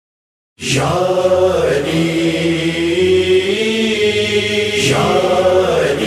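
A chorus of voices chanting in sustained, slowly gliding tones, the vocal backing that opens a noha (Shia lament). It starts abruptly about half a second in after silence.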